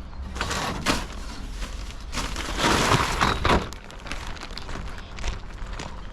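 Crunching and rustling handling noise with a few sharp knocks, loudest for about a second and a half in the middle.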